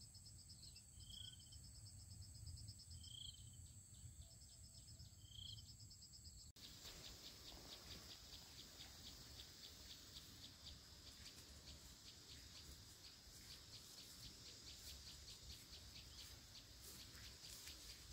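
Faint insect chorus trilling steadily, with a single bird chirp about every two seconds. A sudden cut about six and a half seconds in switches to a denser, rapidly pulsing insect chorus.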